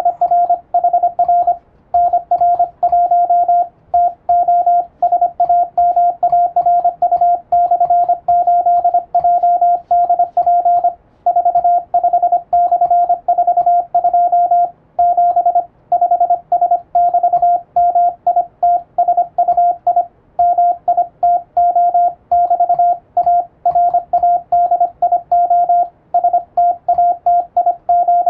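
Morse code sent on an electronic keyer: a single steady beep tone keyed on and off in fast dots and dashes, with brief pauses between groups. It spells out an English-language radiotelegram in international Morse.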